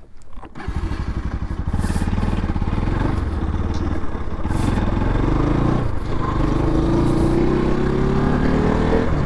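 Bajaj Pulsar NS200 single-cylinder engine running as the motorcycle pulls away and rides, its pitch rising steadily near the end as it accelerates.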